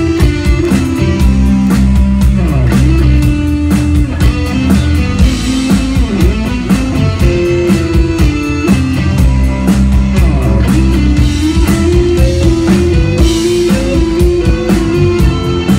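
Instrumental rock music with electric guitar and a steady drum-kit beat, with no singing.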